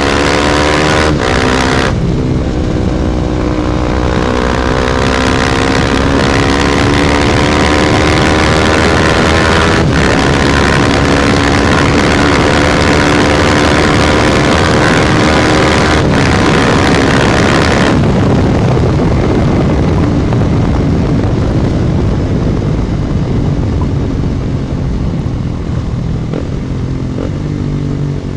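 KTM Duke 250's single-cylinder engine running through an Akrapovic exhaust under way. It accelerates with a couple of quick gear changes at the start, holds a steady, slowly rising note, then rolls off the throttle about two-thirds of the way in and slows. Heavy wind noise buffets the phone microphone.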